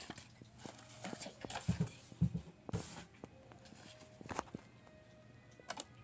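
Scattered light taps and knocks, with a few dull thuds about two seconds in.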